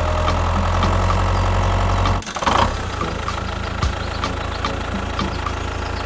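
Tractor engine running steadily with a deep hum and a light regular ticking about twice a second. About two seconds in, the hum breaks off briefly, a short louder burst follows, and the engine sound resumes.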